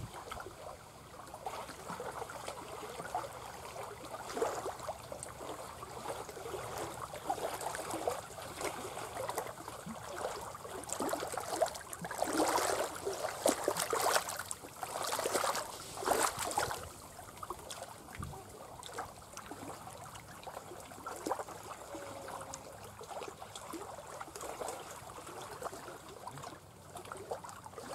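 Water trickling and splashing, with a louder stretch of splashes about halfway through.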